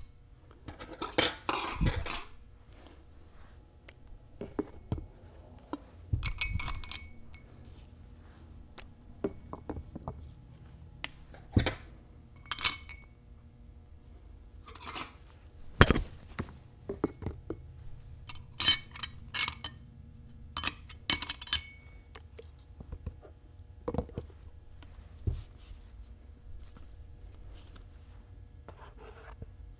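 Steel clutch plates of a Dana 44 Powr-Lok limited-slip differential clinking against each other and the differential case half as they are laid into the clutch pack by hand. The clinks are irregular and come in small clusters, some with a light metallic ring, with quiet gaps between.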